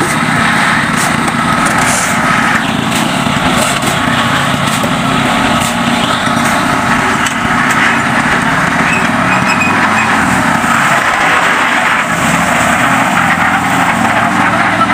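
Small engine running steadily at a concrete pour, a constant drone with no pauses.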